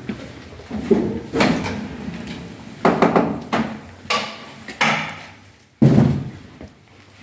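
Metal clunks and knocks from the rear locking bars and ramp of a Bockmann Portax Esprit horse trailer being unlatched and lowered, about seven separate impacts, with the sharpest bang near the end.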